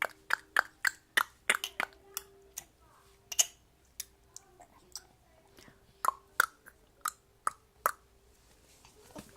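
A person making a run of sharp single clicks, a new sound for a baby to copy. They come about two or three a second, with a short lull a few seconds in.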